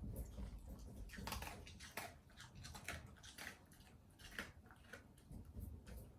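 Shiba Inu chewing food, a string of faint, irregular crisp crunches.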